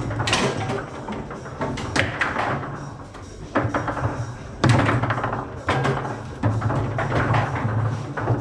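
Table football in play: a rapid, irregular series of sharp taps and knocks as the ball is struck by the players' figures and hits the table walls, with rods knocking.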